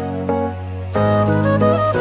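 Instrumental background music: a slow melody over low held notes, with the harmony changing about a second in.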